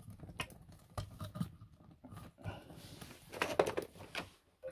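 Steel ball bearing being pressed and turned by hand in the aluminium bearing seat of a scooter crankcase: light irregular clicking and rattling of the balls and races against the metal, with a louder cluster of clicks about three and a half seconds in. The bearing is being test-fitted in a seat that has been staked to tighten it.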